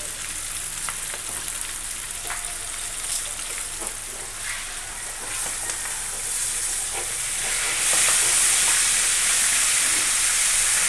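Two whole fish sizzling as they fry in a wok of hot oil, with occasional light clicks of metal tongs against the pan as the fish are turned. The sizzling grows louder about eight seconds in.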